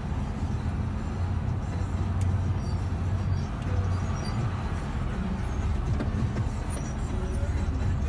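Steady low rumble of a road vehicle's engine running.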